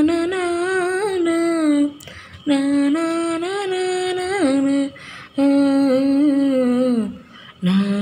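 A woman singing a slow wordless tune in four drawn-out phrases, with short pauses for breath between them.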